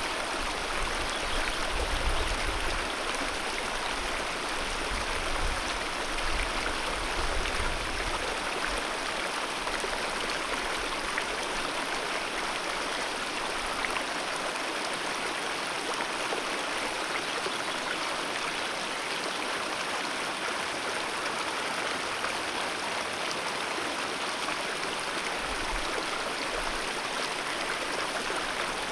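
Alpine mountain river rushing steadily over rocks, an even, continuous wash of water. A low rumble comes and goes under it in the first several seconds and briefly near the end.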